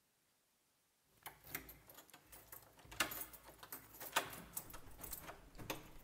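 Keys jangling and clicking in a door lock as a door is unlocked and opened: a faint run of irregular clicks and rattles starting about a second in, over a low rumble.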